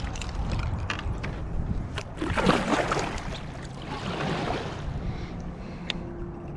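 Water splashing beside a small fishing boat, twice: a longer splash about two seconds in and a shorter one near four seconds, with scattered light clicks and knocks over a steady low rumble.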